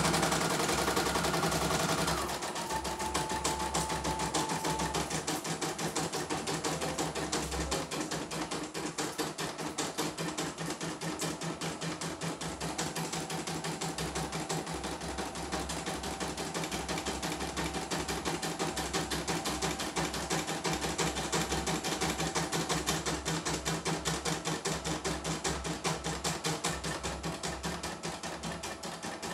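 CNY E900 portable embroidery machine stitching a design: a rapid, even clatter of the needle with the hoop stepping under it, over a faint motor whine. It is louder for the first two seconds. This is a test run after new parts brought back a machine that had been completely dead.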